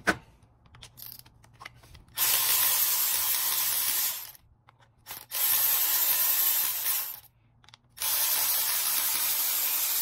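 Cordless electric ratchet spinning out the three 10 mm bolts that hold the upper half of a spool valve, in three runs of about two seconds each.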